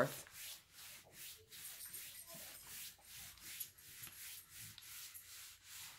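Electric iron's soleplate sliding quickly back and forth over a sheet of paper covering a canvas: a rhythmic swishing rub, about three strokes a second.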